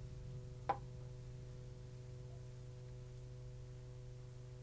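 A single sharp click with a short ring just under a second in, over a steady low hum.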